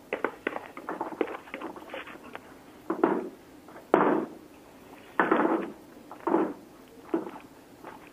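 Plastic bowl scraper wiping thick choux paste off a stand mixer's flat beater and knocking against a stainless steel pot: a string of short scrapes and knocks, four of them louder than the rest.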